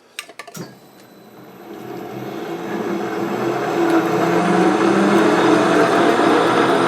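A few sharp clicks, then a metal lathe's motor and gear train coming up to speed over about three seconds and running steadily with a gear whine, while threading a lead screw.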